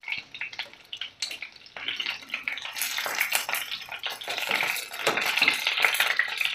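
Chicken drumsticks sizzling in hot oil in a frying pan as they are turned over with tongs. A few clicks and taps come first, then the sizzle grows louder and denser from about two seconds in.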